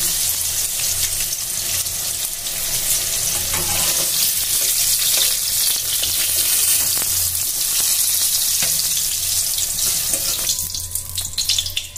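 Pointed gourd pieces sizzling in hot oil in a metal kadai, with a metal spatula scraping against the pan as the pieces are lifted out. The sizzle drops near the end as the pan empties.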